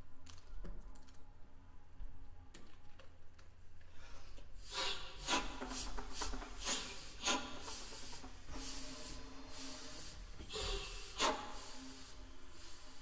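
A small plastic object is rubbed and scraped across the taut skin of a large inflated ball, giving a run of squeaky, rasping strokes that start about five seconds in. The strokes are irregular, with a few louder ones among them.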